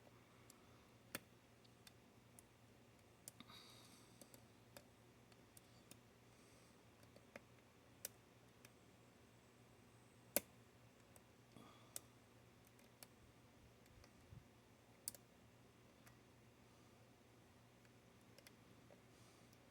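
Lock picking in a Paclock 90A-Pro padlock: scattered sharp metal clicks of a hook pick and prybar tensioner working the pins, irregular and a few seconds apart, the loudest about ten seconds in. A brief soft rustle near four seconds in.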